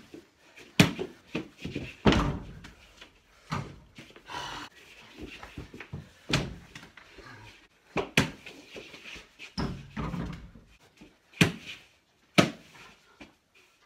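A mini basketball thumping on a wooden floor and banging off a wall-mounted mini hoop's backboard and rim during one-on-one play: about eight sharp, irregular thumps and bangs.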